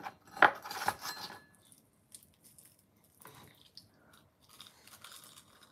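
Sharp crackling clicks as a piece of crisp fried chicken (karaage) is picked out of a ceramic bowl, then softer crunching and chewing as it is bitten and eaten.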